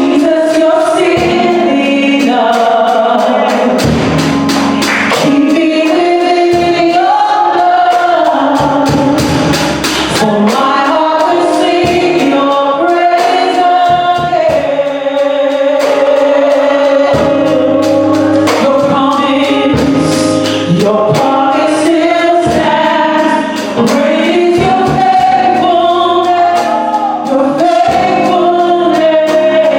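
Gospel worship song: a group of voices singing a melody together over band accompaniment, with a steady percussion beat.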